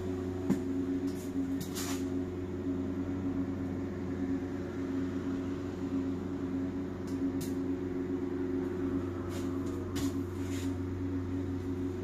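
Steady low hum of the Volvo 7900 Hybrid bus's onboard machinery heard inside the passenger cabin, several constant tones that never change pitch, with a few light clicks scattered through.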